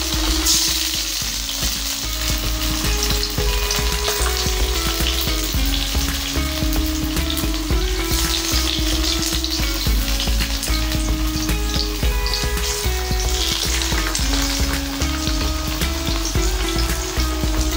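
Potato slices sizzling steadily in hot oil in a frying pan as more slices are laid in, with background music underneath.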